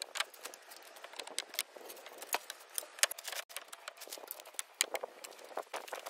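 Pine boards and thin wooden stickers knocking and clacking as they are laid on a lumber stack: a scatter of short, sharp wooden knocks at irregular intervals.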